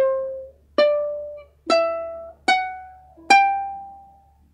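Ukulele chords strummed once each, five strokes a little under a second apart, each left to ring and fade. The pitch steps up from chord to chord, and the last one rings out longest.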